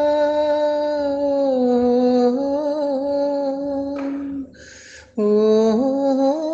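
A solo voice singing long, wordless held notes of a slow Telugu song melody, stepping down and back up in pitch, with a short breath about four and a half seconds in before the next note starts.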